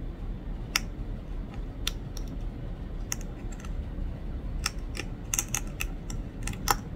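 A cluster of head lice being crushed under a thumbnail: a dozen or so small sharp clicks and pops, irregularly spaced and coming faster in the second half.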